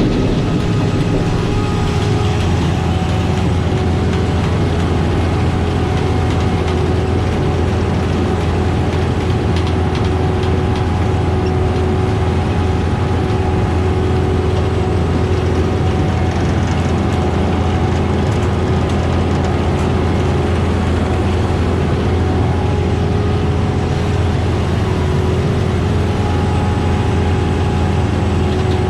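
Kleine SF10-2 sugar beet harvester running steadily while lifting beet: a constant engine drone with a few steady higher tones from the machine above it.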